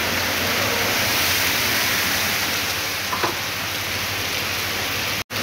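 Heavy rain pouring onto a flooded street: a steady hiss of rain on water and pavement, broken by a split-second dropout near the end.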